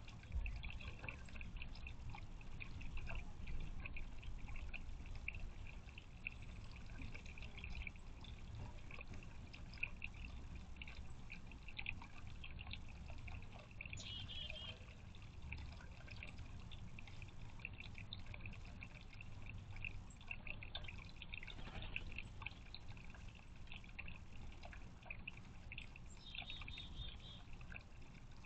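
Thin stream of water from a garden bird-bath fountain trickling and splashing steadily into the water of its concrete basin.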